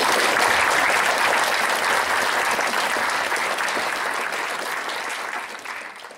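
Audience applauding: dense, steady clapping that fades out gradually over the last couple of seconds.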